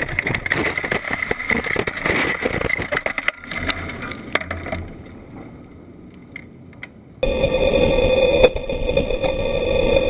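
Sprint car crashing and flipping: rough engine noise with rapid clattering knocks and scraping for about three seconds, dying down to a low rumble as the car comes to rest. About seven seconds in the sound cuts abruptly to a steady sprint car engine drone.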